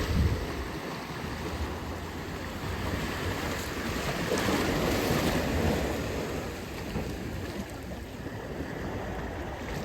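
Ocean surf: waves breaking and washing in, the wash swelling to its loudest about four to six seconds in, with a low rumble of wind on the microphone.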